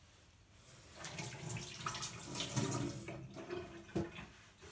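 Water running and splashing at a kitchen sink tap, starting about a second in, with a sharp knock near the end.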